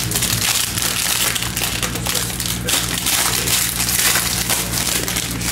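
Silver foil wrapper of a baseball card pack being torn open and crumpled by hand: continuous crinkling and crackling.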